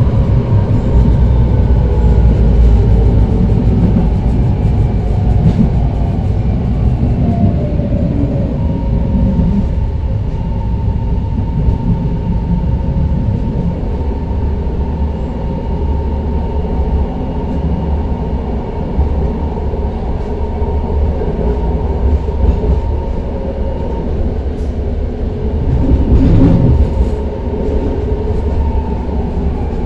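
BART Rohr B2 rapid-transit car running, its Adtranz 1507C traction motors whining over the rumble of wheels on rail. The whine falls in pitch over the first several seconds, holds steady, then starts falling again near the end, and the rumble gets louder for a moment about 26 seconds in.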